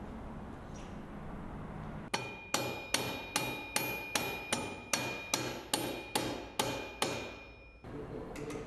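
A mallet striking a motorcycle's rear wheel at the sprocket, about a dozen steady blows roughly two and a half a second, with a metallic ring carrying between them. The blows start about two seconds in, and the ringing cuts off suddenly about a second before the end.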